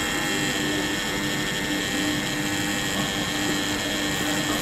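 Steady drone of running industrial machinery, with several steady humming tones through it.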